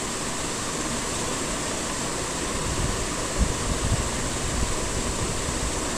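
Steady rushing noise of an electric fan running, with a few faint low bumps a little past halfway.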